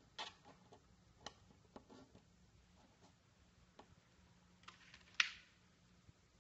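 Light, scattered clicks and taps of small objects being handled on a tabletop, about ten in all, the sharpest about five seconds in.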